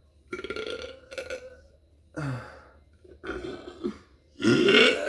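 A woman burping, a run of five or six separate burps, the last starting near the end, the loudest and longest.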